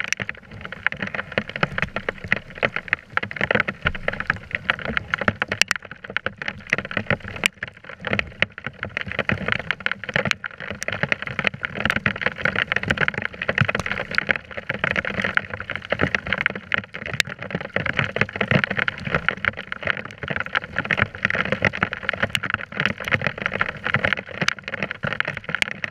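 Rain falling on a sea kayak and its deck-mounted camera: a steady, dense crackle with many sharp ticks as drops strike close to the microphone.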